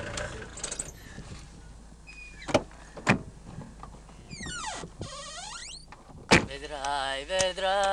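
Car sounds: the idling engine stops, then come a few latch clicks, a squeal falling in pitch lasting about a second, and a sharp car door slam about six seconds in, the loudest sound here. A voice follows near the end.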